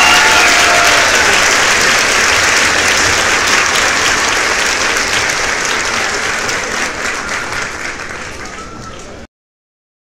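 Applause from a crowd, many hands clapping, fading slowly and then cutting off suddenly about nine seconds in.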